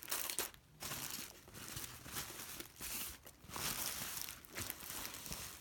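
Tissue paper rustling and crinkling as it is handled, in uneven bursts with short pauses.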